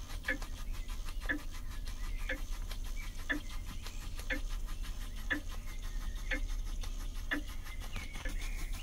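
Small live-steam model beam engine (Retrol kit) running slowly and steadily, beating about once a second with softer beats in between, over a constant low hum.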